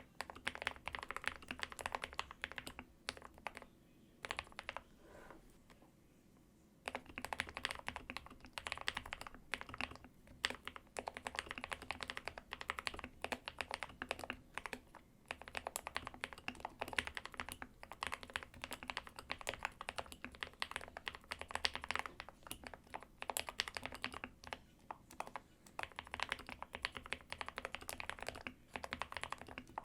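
Typing on a GK61/SK61 61-key mechanical keyboard with lubed Gateron Optical Black linear switches: fast, dense runs of keystrokes, with a lull of a few seconds about four seconds in.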